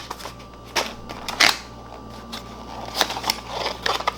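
Unboxing handling sounds: packaging rustling, with scattered small clicks and knocks as items are taken out of the box, over a steady low room hum.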